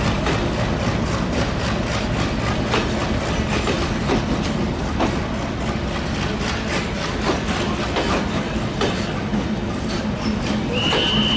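LHB passenger coaches rolling past close by, their wheels clattering rhythmically over the rail joints. A high wheel squeal starts near the end.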